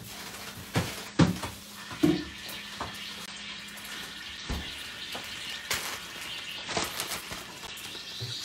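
Kitchen clatter: a string of knocks and clunks as things are handled and set down, the loudest about a second in and again about two seconds in, over a faint steady hum.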